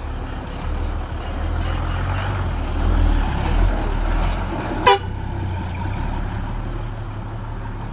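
Heavy diesel engines of a bulldozer and dump truck running with a steady low rumble, swelling for a moment about halfway through. Just before five seconds in comes one very brief, sharp sound, the loudest moment.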